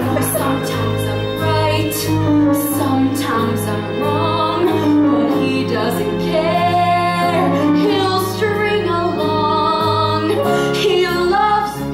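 A female singer singing a solo show tune over a sustained instrumental accompaniment.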